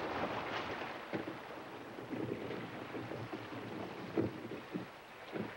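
Wind and water sounds around a small sailboat at the shore, with scattered light knocks; the loudest knock comes about four seconds in.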